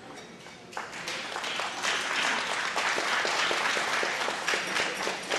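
Audience applauding, starting about a second in and building to steady clapping.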